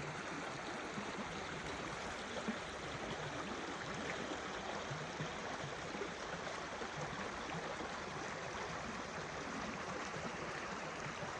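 Steady rush of running water, with a brief tap about two and a half seconds in.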